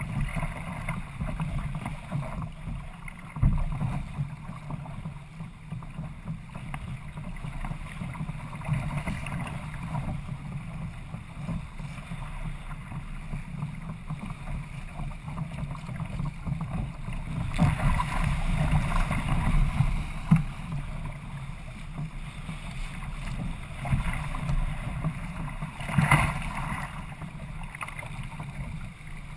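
Wind buffeting the microphone over the steady rush of water along a sailing kayak's hull as it moves through chop, with louder splashes of spray about two-thirds of the way in and again near the end.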